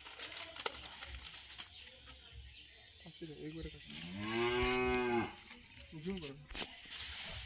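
A cow mooing: a short call about three seconds in, then one long, loud moo, and another brief call just after it.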